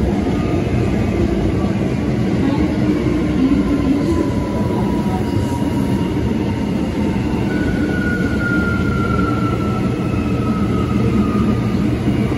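Bombardier R179 subway train under way, its MITRAC AC traction motors whining over a steady rumble of wheels on rail. The whine slides slowly down in pitch, clearest in the second half, as the train slows.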